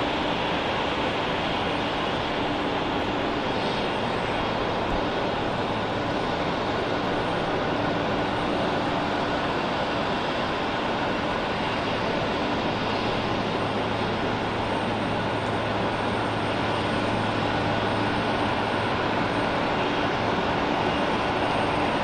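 Jet airliner engines running with a steady noise, a low hum coming in about halfway through.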